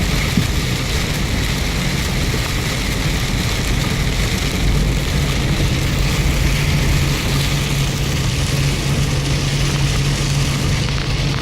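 A car driving through heavy rain, heard from inside the cabin: a steady hiss of rain and wet road noise over a low, steady engine hum.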